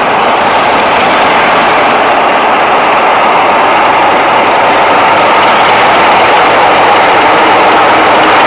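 Railway locomotive running close by: a loud, steady engine noise that slowly grows louder.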